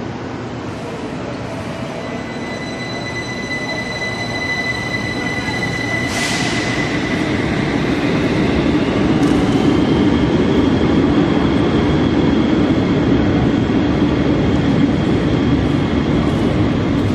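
Metro train running in the station, its electric traction motors whining on steady high tones. There is a short hiss about six seconds in, then a whine that rises in pitch as the rumble grows louder.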